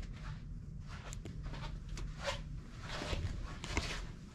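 Faint rustling and scattered light clicks over a low steady hum: handling noise and light footsteps as the camera is moved around the car.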